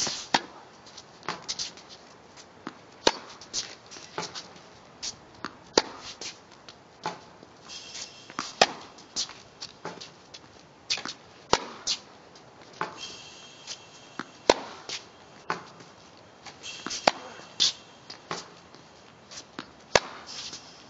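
Tennis racquet striking balls on a hard court: a loud sharp pop about every three seconds, with lighter ball bounces between and short squeaks of shoes on the court.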